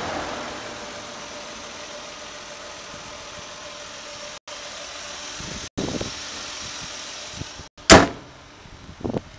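Nissan Maxima's VQ-series V6 idling steadily. A single loud slam about eight seconds in, after which the engine sound drops away.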